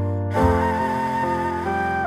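Background music: a soft, slow melody on a flute-like instrument over sustained low accompaniment.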